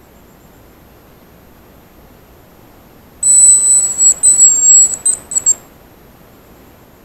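Hazel grouse decoy whistle blown close by, starting about three seconds in: a very high, thin whistle made of a drawn-out note followed by several short broken notes, imitating the hazel grouse's song.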